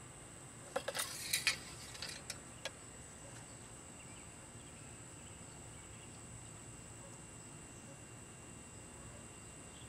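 A few quick, light clicks and taps from hands working in a car's engine bay in the first few seconds, then a faint steady background with a thin, high-pitched whine.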